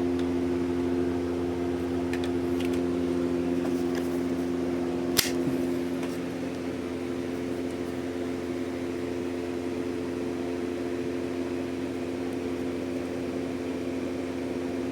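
Electric polishing machine running steadily with an even hum, as used to bring a steel blade to a mirror finish. A single sharp click about five seconds in.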